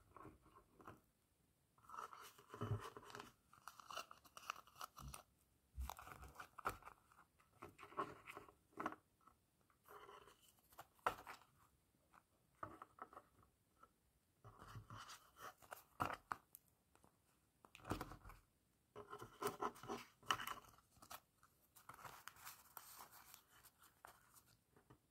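Handmade paper packets and folded paper cards being handled and opened: irregular paper rustling and crinkling in bursts, with short quiet gaps between.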